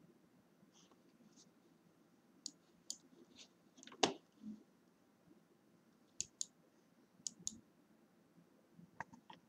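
Computer mouse buttons clicking, a Corsair Harpoon RGB gaming mouse, as settings are clicked and a slider is dragged. The clicks are faint and mostly come in quick press-and-release pairs, with one louder knock about four seconds in.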